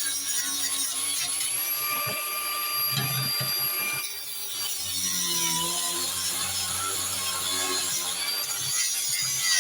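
Electric drill with a wire brush attachment running and scrubbing old paint off a metal cooling fan, its motor whine dipping briefly under load about five seconds in.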